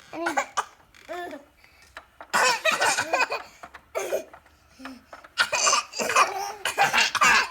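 Baby laughing in repeated bursts of hearty laughter, answering a child's coughs mixed in between.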